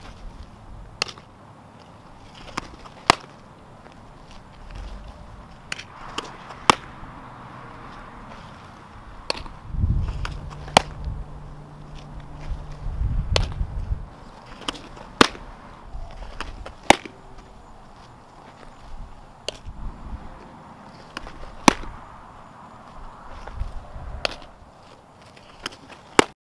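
Softballs smacking into leather gloves: sharp single pops every second or two as the catcher receives balls and throws them back. A low rumble joins in for a few seconds near the middle.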